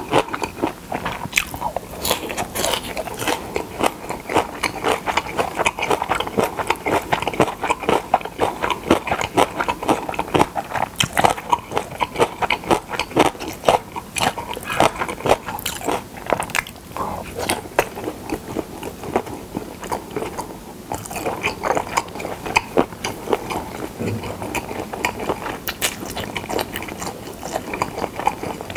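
Close-miked chewing of pressed boiled pork slices (pyeonyuk) and chewy seasoned dried radish strips (mumallaengi): a steady, rapid run of wet clicks, smacks and light crunches.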